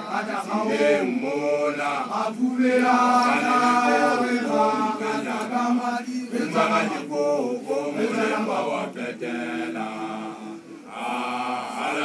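A man's voice chanting in long, drawn-out phrases, holding notes and sliding between them, with a brief break about ten and a half seconds in.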